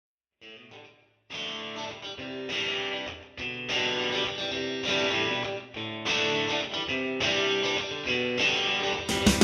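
Background music: an instrumental track led by picked guitar, starting after a brief silence, with drums coming in near the end.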